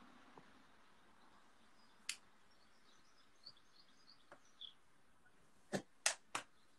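Quiet background with faint, short, high bird chirps in the middle and a few sharp clicks: one about two seconds in and three in quick succession near the end.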